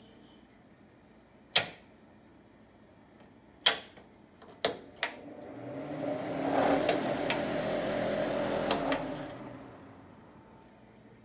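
Kitchen range hood exhaust fan switched on and run for a few seconds, a steady whirring hum that builds up, holds, then winds down when it is switched off. Sharp clicks of the hood's push-button controls come before and during the run.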